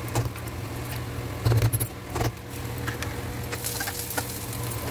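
Steel spoon clinking and scraping against a steel bowl while mashing boiled potatoes, then a ladle scraping in a steel kadhai, with a cluster of louder knocks about a second and a half in, over a steady low hum.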